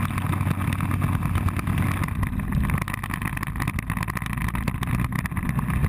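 Motorbike running at steady road speed: a low engine drone mixed with wind rushing over the camera's microphone.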